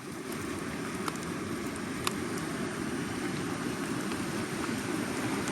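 Steady rushing of a flooded river's fast-flowing water, with a couple of faint clicks.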